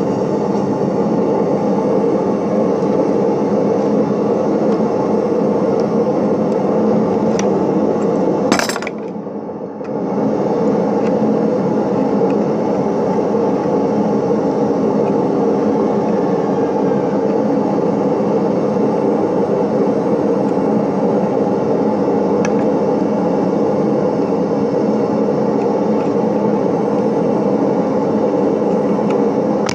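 A loud, steady mechanical drone with constant humming tones, broken by a sharp click and a brief drop about nine seconds in, with a few faint metallic clicks over it.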